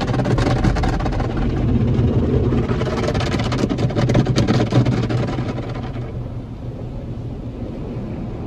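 Tunnel car wash heard from inside the car's cabin: wash brushes and water spray beating on the windshield and body over a low steady hum, a dense rapid patter that eases off and grows quieter about six seconds in.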